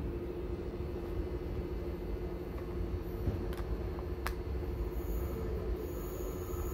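Steady low rumble and hum of trains at a railway station platform, with two sharp clicks a little after halfway.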